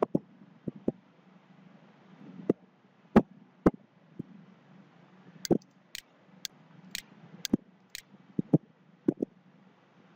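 Computer mouse clicking: a run of sharp, irregular clicks, some in quick pairs, over a faint low hum.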